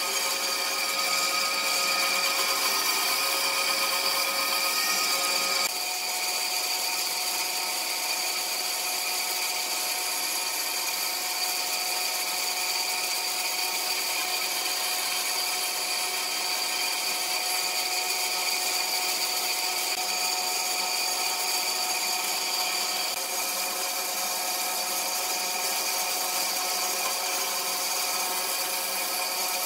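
Band saw running steadily as small wooden pieces are pushed through its blade, a constant whine with hiss from the cut. Its pitch and level shift abruptly about six seconds in.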